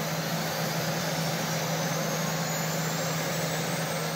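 Jet engine on a trailer-mounted test stand running steadily: an even rushing noise over a constant low hum, with a faint high whine slowly rising in pitch.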